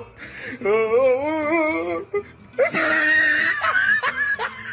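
A voice wailing in long, drawn-out cries with a wavering pitch, twice; the second cry is higher and brighter.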